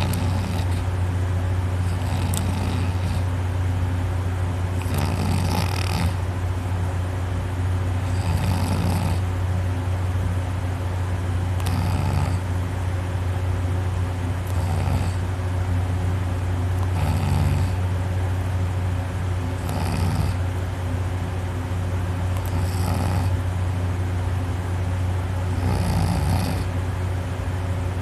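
A person in a drunken sleep snoring heavily on her back, the soft palate and uvula rattling. The snores are insanely loud and come about every three seconds, with a steady low hum underneath.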